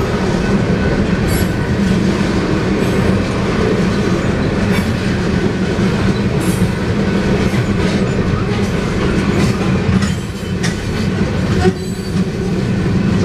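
Freight train tank cars rolling past: a steady, loud rumble of steel wheels on rail with intermittent clicks as the wheels cross rail joints.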